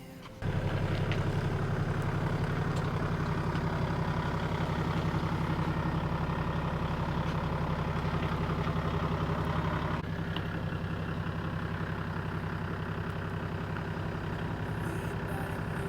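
An engine idling steadily. It cuts in suddenly about half a second in and drops a little in level around ten seconds in.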